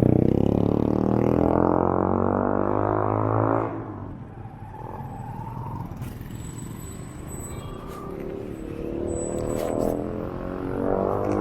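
Passing road traffic: a vehicle engine drones close by, shifting in pitch, and drops away about four seconds in. A quieter stretch of traffic noise follows, then another engine drone builds near the end.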